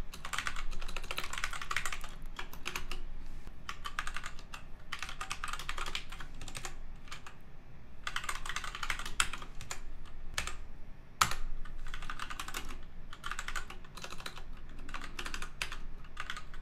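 Typing on a computer keyboard in quick bursts of keystrokes separated by short pauses, with one louder keystroke about eleven seconds in.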